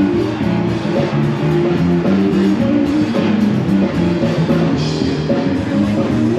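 Background music: a rock-style track with guitar and drums over a steady beat.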